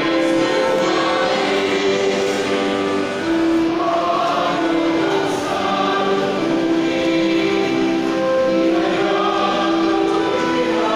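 A choir singing a slow hymn, holding long notes.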